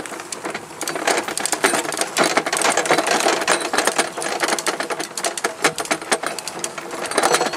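Towed go-kart rattling and clattering over bumpy ground: a fast, dense run of clicks and knocks from the kart's frame and loose parts as it rolls.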